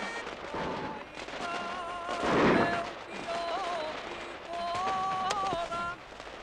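Fireworks going off: a loud burst about two and a half seconds in and a sharp single crack a little after five seconds, with music carrying a wavering melody of held notes in between.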